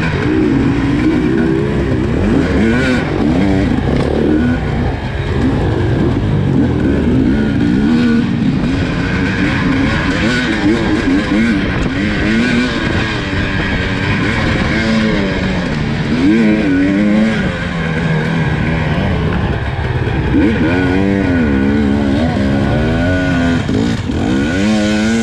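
A racing engine running hard, its pitch rising and falling again and again as it revs up, shifts and slows.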